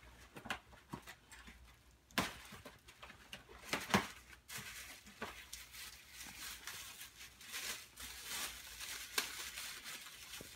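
Gift wrap and tissue paper rustling, crinkling and tearing as presents are unwrapped, with a few sharper rips standing out.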